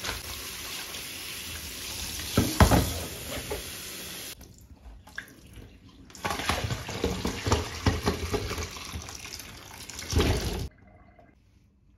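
Tap water running into a stainless steel sink and splashing over cut potato and drumstick pieces being rinsed by hand in a plastic colander to wash off their starch. The water drops out about four seconds in, comes back about two seconds later with more splashing, and stops suddenly near the end.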